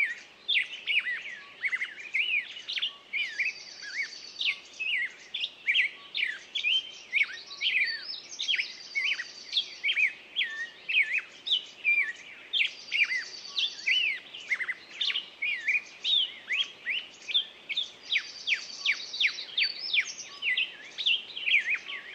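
Songbirds singing: a dense run of quick chirps and sweeping whistled notes, with a high, fine trill returning every four to five seconds.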